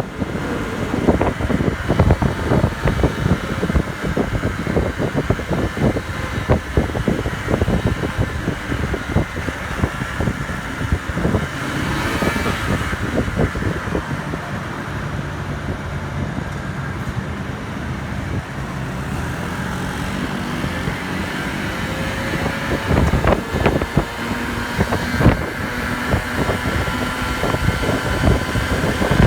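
Small 50cc moped engine running steadily under load, its whine drifting slightly in pitch, with heavy wind buffeting on the microphone.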